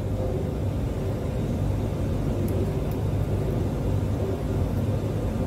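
A steady low rumble, with a couple of faint clicks as the plastic cable gland is worked into the fan housing about two and a half and three seconds in.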